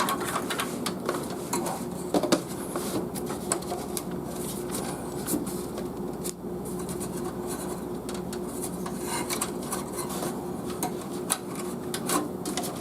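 Scattered small metallic clicks and clinks of screws and a screwdriver being handled while working on a computer case, over a steady low hum.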